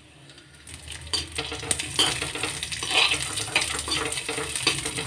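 Raisins frying in ghee in a metal kadhai, with a sizzle, and from about a second in a metal slotted spoon scraping and clinking against the pan as they are stirred.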